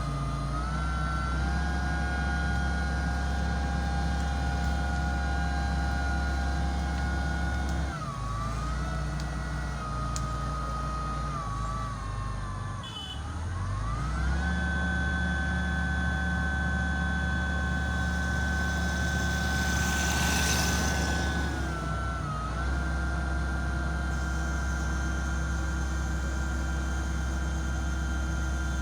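Mitsubishi MG430 motor grader's diesel engine running steadily with a high whine, its pitch dipping and recovering about eight seconds in, more deeply around thirteen seconds, and again near twenty-two seconds.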